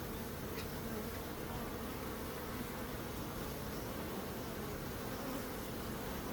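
Honeybees buzzing together in a steady, continuous hum, with no pauses or single loud fly-bys.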